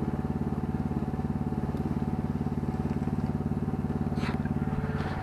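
Small engine on an ATV backhoe rig running steadily at idle, with an even, fast firing pulse and a faint click about four seconds in.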